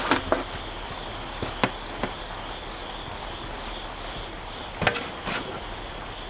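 Sharp knocks and clatters of smoked chicken wings being lifted off a metal smoker grate and dropped into an aluminium foil pan. There are three pairs of knocks, near the start, around two seconds in and near five seconds, over a steady hiss of rain.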